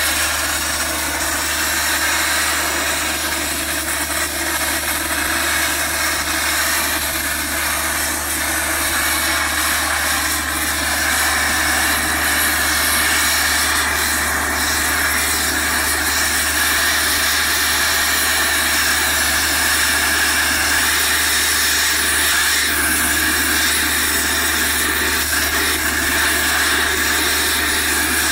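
Thermal-lance oxygen cutting into a solid steel shaft: a loud, steady rushing hiss of the oxygen jet burning through molten steel, with a steady low hum underneath.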